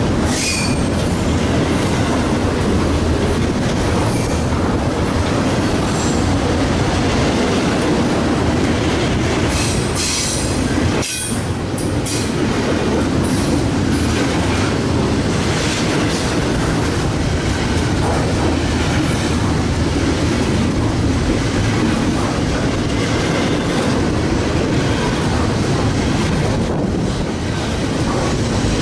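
CSX double-stack intermodal freight train's loaded container well cars passing close by: a steady loud rumble and rattle of wheels on rail, with short high-pitched wheel squeals now and then, most around ten seconds in.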